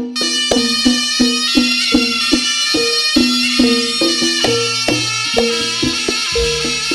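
Jaranan gamelan band playing: a slompret (Javanese shawm) holds a reedy, nasal melody over an even beat of drum and gong-chime strikes, about two or three a second.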